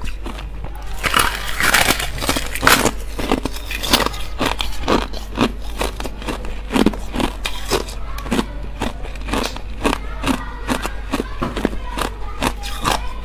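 Thin, hollow clear ice being bitten and chewed: a dense, irregular run of crisp crackling crunches and sharp cracks throughout.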